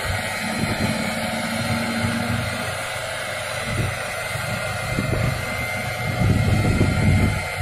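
A heavy vehicle's engine running, under a steady hiss of wind or machine noise, with uneven low rumbles.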